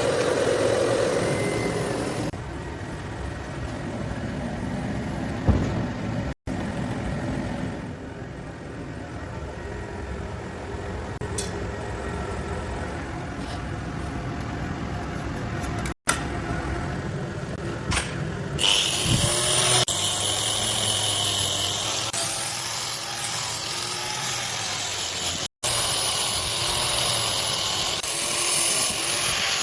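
Workshop machinery running: a steady motor noise across several short clips cut together, with a higher whine added from about two-thirds of the way in.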